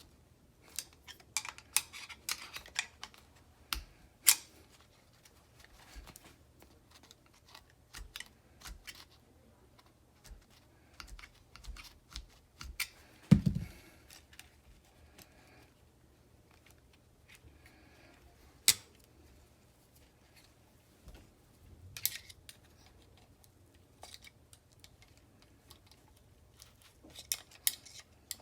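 Hands working on a car seat belt assembly: scattered sharp clicks and taps of the parts being handled, with one heavier thump about 13 seconds in.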